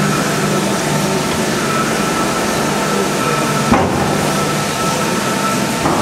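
LMS 3F 'Jinty' 0-6-0T steam tank locomotive standing in steam: a steady hiss with a faint steady whine, broken by a sharp clunk a little past halfway and a lighter knock near the end.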